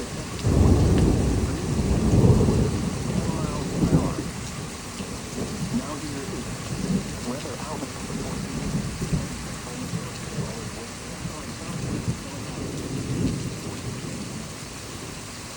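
Thunder rumbling, rising sharply about half a second in and loudest over the next two seconds, with a sharper crack near four seconds. It then rolls on in smaller waves and fades, over steady rain.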